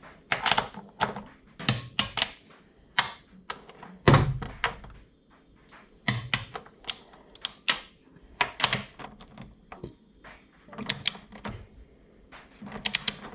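Hand tools working on the front strut bolts: a string of irregular metallic clicks and knocks as the bolts are tightened, with one heavier thunk about four seconds in.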